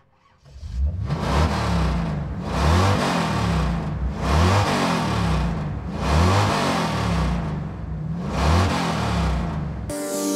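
Race car engines revving as cars pass one after another: about five swelling rushes, each rising and falling in pitch, a second and a half to two seconds apart. Near the end they cut off into a falling whoosh and music begins.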